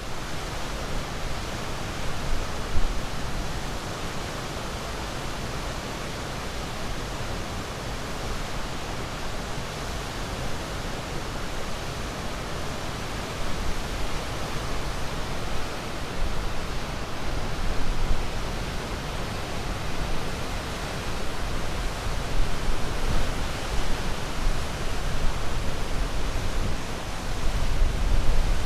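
Ocean surf: a continuous wash of breaking waves that swells slightly every few seconds.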